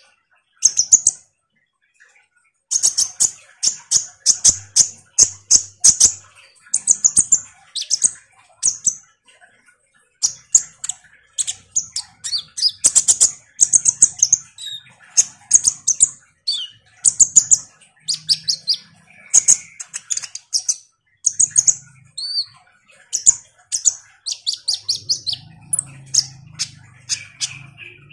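Kolibri ninja, a sunbird, singing a fast, high-pitched chattering song in short bursts of rapid chirps and trills, with a couple of brief pauses.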